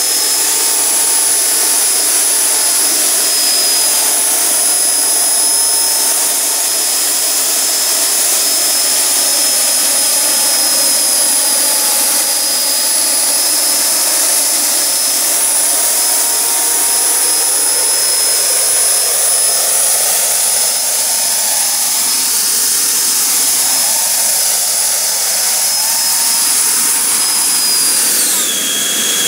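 Electric fans of a large 3D-printed RC Harrier jump-jet model whining steadily at hovering power, the pitch wavering slightly with throttle. Near the end the whine drops sharply in pitch as the power is cut back after touchdown.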